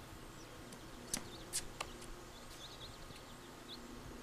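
Three sharp knocks of a basketball in quick succession about a second in, heard from a distance, followed by a few faint, short bird chirps.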